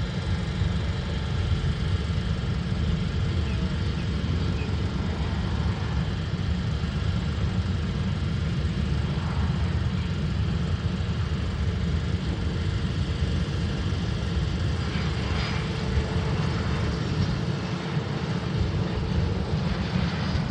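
Private jet's engines running steadily as it comes in to land, a heavy low rumble with a faint steady whine over it.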